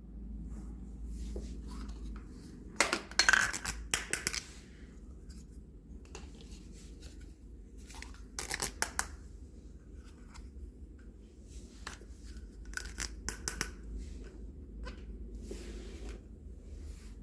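Small plastic toy pieces and their packaging being handled: scattered sharp clicks and clacks with rustling, coming in loud clusters several times.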